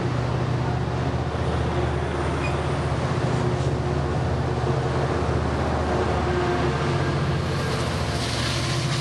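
Amtrak passenger train pulling out: bilevel coaches rolling past close by, with the steady low drone of the EMD F59PHI diesel locomotive pushing from the rear. Near the end the locomotive draws alongside and the hiss of the passing train brightens.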